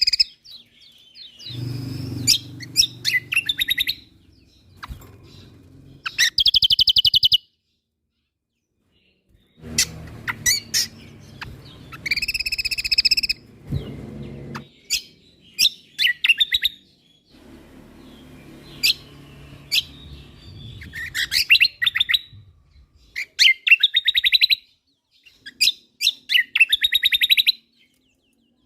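Kecial kombok (cucak kombo) songbird singing: a series of fast, rattling trills and sharp chirps in short phrases with brief pauses, with a low rumble under some of them.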